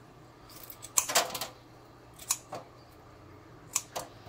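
Kitchen shears snipping off a large prawn's legs: about seven short, sharp snips in small groups.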